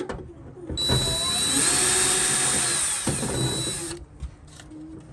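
Power drill fitted with a 10 mm socket, running steadily for about three seconds with a whine as it spins out a fastener, starting about a second in. After it stops there are a few light clicks.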